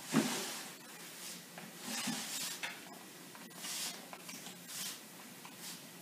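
Hand-held trigger spray bottle misting water onto potting soil: several short hissing sprays, one per squeeze of the trigger.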